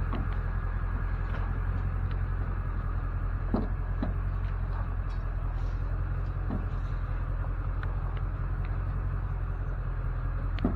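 Vehicle engine idling steadily, with a few light knocks over it in the middle.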